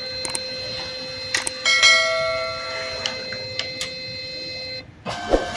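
Brother DCP-B7640DWB's automatic document feeder drawing a page through while scanning: a steady motor whine with clicks. It stops shortly before the end, followed by a brief clatter.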